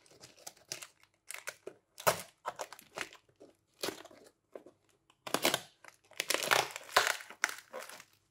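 A mailed parcel being unwrapped by hand: packaging torn open and crinkled in irregular crackling bursts, busiest in the second half.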